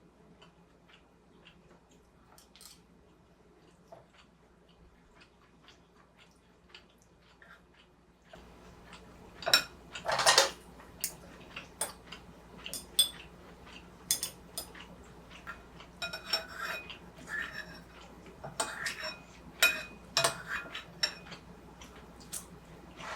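Faint light ticks and taps, then from about eight seconds in a run of utensils clinking and scraping against dishes, loudest around ten seconds in.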